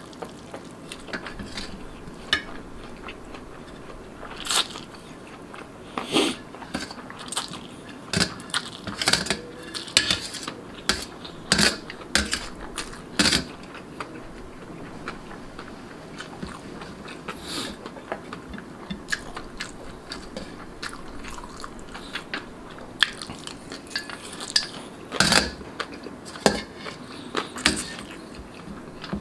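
Close-miked eating: noodles being slurped and chewed, with a metal spoon clinking and scraping irregularly on a stainless steel tray.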